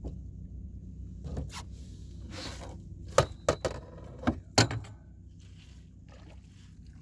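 A hooked redfish being landed with a net beside a small boat: four sharp knocks in two quick pairs, about three and about four and a half seconds in, over a steady low rumble.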